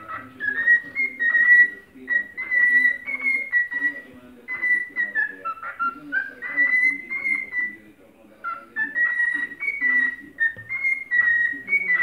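Male cockatiel singing a whistled courtship song: a run of short, clear whistled notes around one pitch, some gliding upward, with brief pauses about four and eight seconds in.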